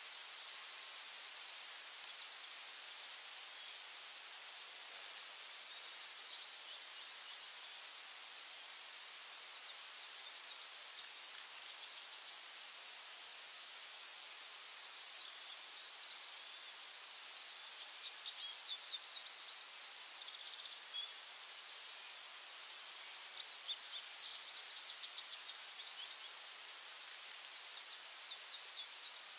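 Outdoor nature ambience: a steady high insect drone over a hiss, with short runs of quick high bird chirps several times, busiest past the middle and near the end.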